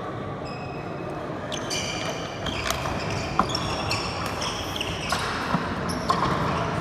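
Badminton rally: rackets smacking the shuttlecock with several sharp hits, the loudest about halfway through, while sneakers squeak briefly and high on the wooden court.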